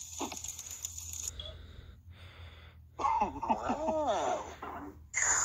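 Wordless cartoon character voice sounds from an animated cereal commercial, played through a phone's speaker, about a second and a half long starting a little past halfway, with quickly sliding pitch. Before that there is a soft hiss.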